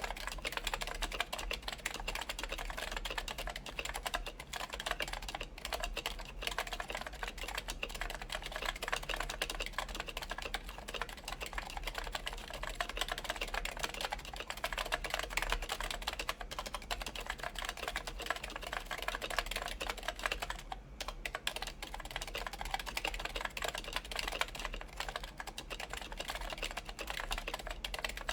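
Continuous typing on a Linworks PC Dolphin keyboard with DynaCap Light Dome electro-capacitive switches. The switches are lubed and fitted with silencing rings, under DCS keycaps on an aluminum plate. It is a dense, steady run of keystrokes with a brief pause about 21 seconds in.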